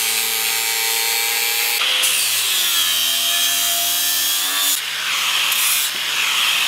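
Electric angle grinder with a sanding disc grinding down a teak spear shaft: a loud, steady hiss of abrasive on wood over the motor's whine. The whine sags in pitch under load and shifts abruptly twice.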